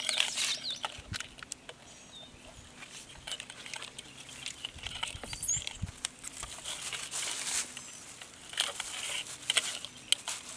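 Rustling, scraping and small clicks of a length of black wire being pulled off its spool and handled by hand, busiest near the start and again in the last few seconds.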